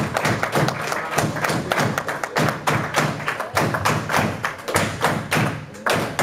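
A group of people giving a rhythmic welcome of thumping and clapping, several beats a second, easing off near the end.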